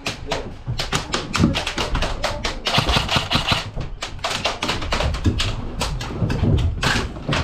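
Airsoft guns firing: a string of sharp clicking shots at an irregular pace, thickening into a quick run about three seconds in.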